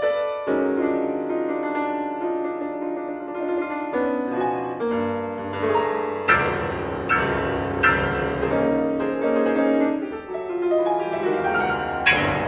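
Solo piano playing a contemporary classical piece: held chords at first, then from about six seconds in, loud accented chords struck roughly once a second over a sustained bass.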